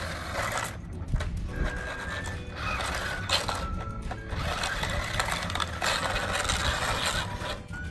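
New Bright RC Tumble Bee stunt car's electric drive motors running in three bursts as its two big tires spin and scrub on concrete, with short whines as it changes direction.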